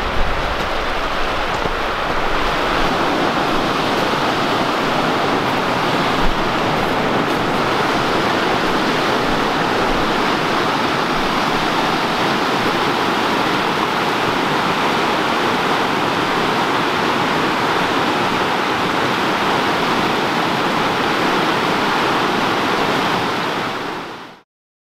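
A rocky brook rushing over small rapids and cascades, making a steady, loud water noise that fades out sharply just before the end.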